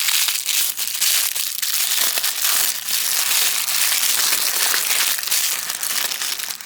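Plastic packaging being handled and crinkled, a dense, loud crackle that dies away near the end.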